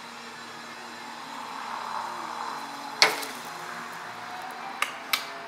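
A steady motor hum with a hiss that swells about two seconds in, then one sharp metal clank about three seconds in and a few lighter clicks near the end, as a metal plate is handled on a belt grinder's tool-rest table.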